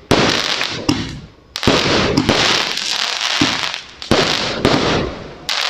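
A 268-shot Lucky Party fireworks cake firing: a sharp bang about every half second to a second, each trailed by a rush of crackling sparks.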